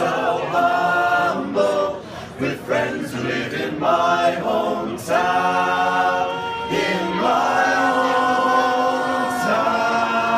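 Male a cappella group singing in close harmony without instruments. A run of short chords gives way, about halfway through, to long held chords that change every two or three seconds.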